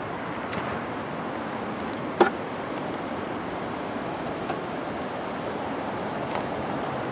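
Steady wind rushing over the microphone, with one sharp click about two seconds in and a few faint ticks.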